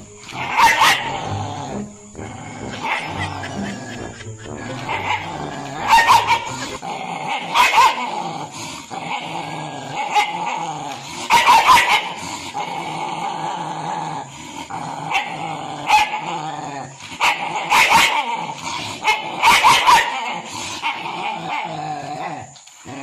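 A dog barking: about seven loud barks a few seconds apart, with quieter vocalising in between.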